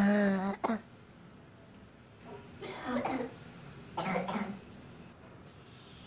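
A young girl coughing in four short fits a second or two apart, acted as an asthma attack.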